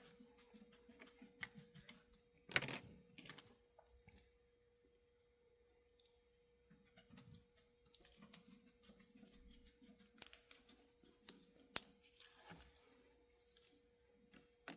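Faint, irregular clicks and taps of small plastic and metal parts of an HO model locomotive's drivetrain being handled and turned by hand, over a faint steady hum.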